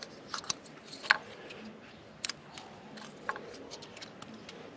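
Scattered sharp clicks and light knocks, about a dozen at irregular intervals, from ignition coil packs and their electrical connectors being pulled, fitted and plugged in by hand while the coils are swapped between cylinders to chase a misfire.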